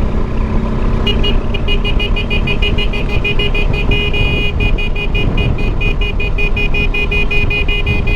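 Motorcycle ride noise, a steady low rumble of engine and wind. From about a second in, a high two-tone electronic beeping pulses rapidly, several times a second, over it.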